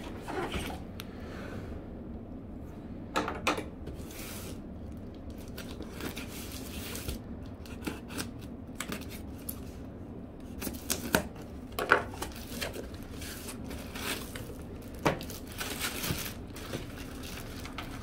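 A cardboard box being handled and set down, its packing tape slit open with a knife, then the flaps pulled back and plastic wrap rustled: a string of short scrapes, taps and crinkles.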